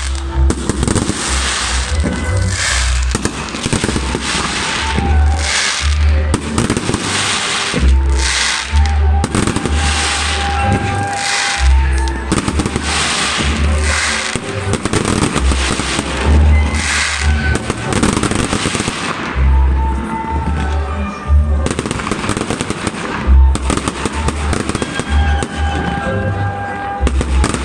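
Aerial fireworks bursting and crackling in rapid succession, many bangs a second, over loud music with a deep bass line.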